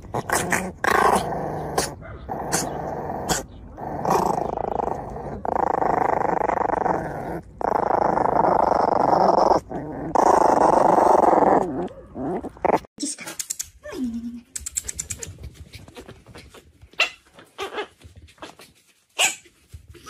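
Puppies growling in long, rough stretches with short pauses while tussling over a bone. About two-thirds of the way through the growling stops, leaving only faint scattered clicks.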